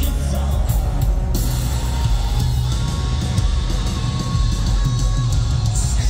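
Hard rock band playing live, loud, with electric guitar and a male lead voice singing into a microphone.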